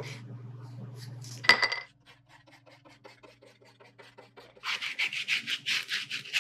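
A low steady motor hum, as of a wood lathe, with one sharp knock about a second and a half in. From about two-thirds of the way in come quick rhythmic rubbing strokes on a lathe-turned wooden handle, about four or five a second.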